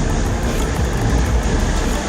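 Two-stroke engine of a 1990 Yamaha WaveRunner 650TL jet ski running steadily.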